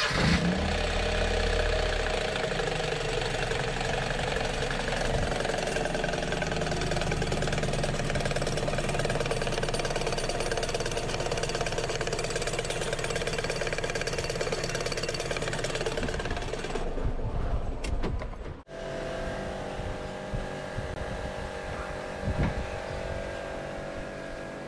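Perodua Kenari engine running with a worn air-conditioning compressor pulley bearing, a steady metallic rattle of metal on metal: the pulley bearing has failed and the pulley is loose. About three-quarters of the way through it cuts off abruptly and a different, quieter steady mechanical hum follows.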